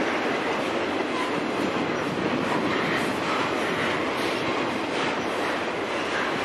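Intermodal freight train cars, carrying trailers and containers, rolling steadily past: the even noise of steel wheels running on the rails.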